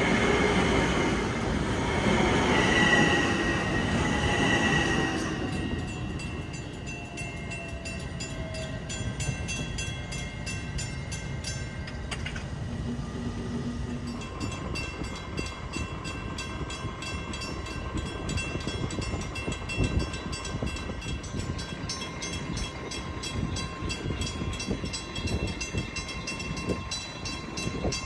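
Long Island Rail Road train passing: loud for the first few seconds, with tones sliding down in pitch as it goes by, then settling into a quieter steady rumble with a faint whine.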